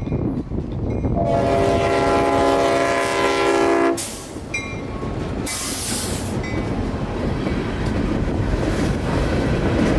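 Leslie RS5T five-chime air horn on the lead CSX locomotive sounding one chord of about three seconds. The locomotives and boxcars then roll past with a steady rumble and wheel clatter, with two short bursts of hiss.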